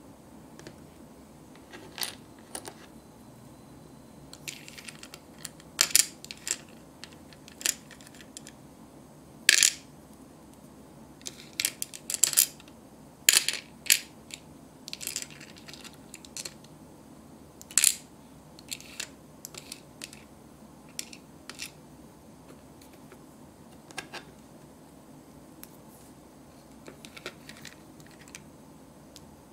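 Small hard plastic toy pieces clicking and tapping against a miniature plastic toy frying pan and its lid as they are handled: irregular sharp clicks, busiest in the middle.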